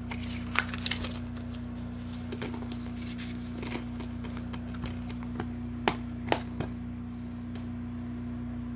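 Plastic DVD case being handled, opened and closed: a couple of sharp clicks about half a second in, and two louder snaps about six seconds in, over a steady low hum.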